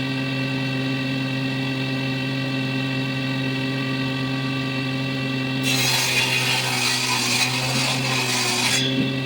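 Electric power saw running with a steady hum, then cutting into walnut wood for about three seconds from a little past the middle, before the blade spins free again near the end.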